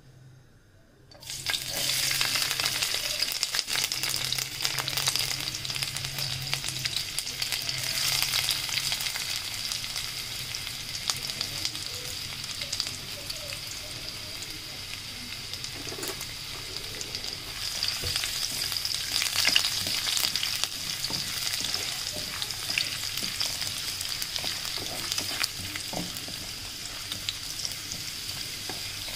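Sliced garlic dropped into hot oil in a wok about a second in, then sizzling and crackling steadily as it fries. It is stirred with a wooden spatula.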